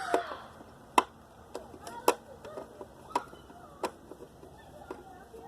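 Scattered sharp metallic clicks and knocks, about one a second, from the screws and housing of an appliance's electric motor being worked at by hand.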